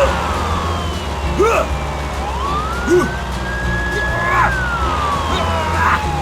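A siren wailing, its pitch slowly rising, holding and falling, over a steady low hum, with short chirping sounds about every second and a half.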